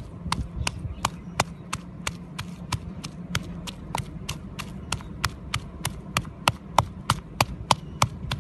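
Wooden pestle pounding chillies, root slices and green leaves in a wooden mortar, sharp knocks in a steady rhythm of about three strokes a second.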